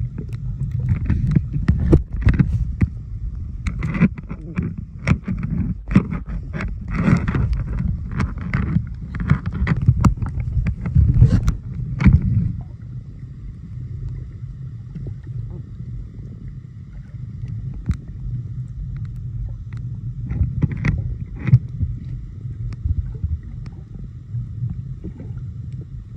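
Muffled sound of a camera held underwater while snorkelling: a constant low rumble of moving water with crackles and bubbly splashes, busy for the first half, then calmer with a faint steady whine from about halfway through.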